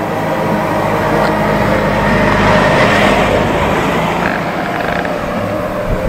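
A vehicle's rushing road noise swells to its loudest about halfway through and fades again, over background music.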